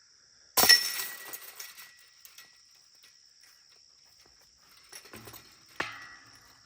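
A putter disc hits a disc golf basket: a sharp clash about half a second in, then the chains jangle and rattle for a second or two. A second, shorter metallic clank of the basket comes near the end. An insect's steady high trill runs underneath.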